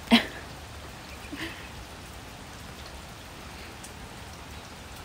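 Steady rain falling, with a short sharp sound just after the start and a fainter one about a second and a half in.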